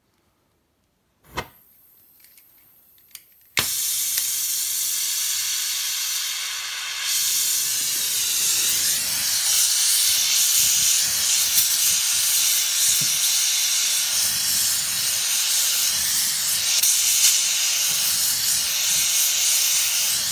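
Gas brazing torch burning with a steady hiss while brazing a cracked stainless-steel exhaust bellows with filler rod. After a couple of faint clicks, the hiss starts suddenly a few seconds in and grows louder about seven seconds in.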